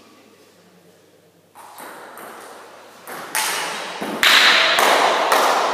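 Table tennis rally: the ball clicking off the bats and the table about twice a second, starting about three seconds in. Over the clicks a loud rush of noise rises sharply about four seconds in.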